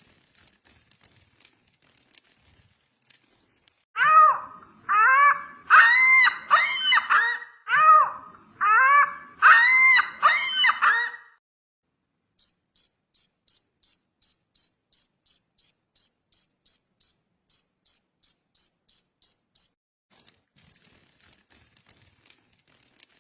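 A run of about eight short pitched animal calls, each rising and falling, then a steady train of high, evenly spaced chirps, about three a second, typical of a cricket.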